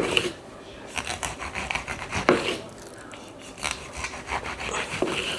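Knife sawing through a tomato in several short rasping strokes, with pauses between.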